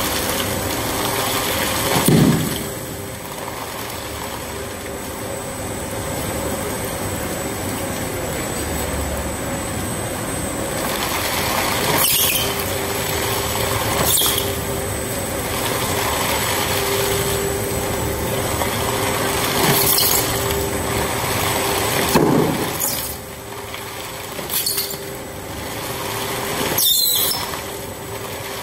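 Two-shaft LDPE film shredder running steadily, its interlocking cutter discs tearing plastic film bags into flakes. Brief sharp high noises come every few seconds, with two heavier low surges, about two seconds in and again near twenty-two seconds, as the film is pulled into the cutters.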